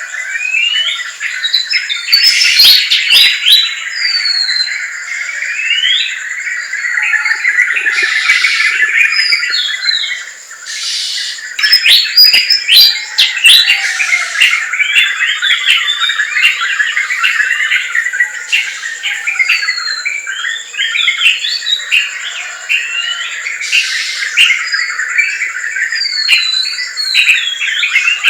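Dense chorus of many forest birds chirping and whistling at once, calls overlapping without pause, with a thin steady high tone running underneath.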